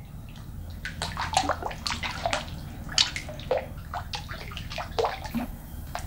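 Pool water sloshing and splashing in an irregular run of small splashes and drips as a person wades up the steps out of the water.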